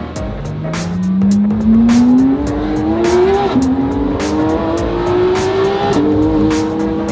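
Porsche 911 GT3 RS flat-six engine heard from inside the cabin, accelerating hard through the gears. The pitch climbs steadily, drops with a quick upshift about three and a half seconds in and again about six seconds in, then climbs again.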